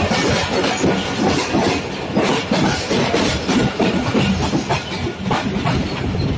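Passenger train running on the rails, its coach wheels clattering over the track in a loud, continuous rattle of knocks.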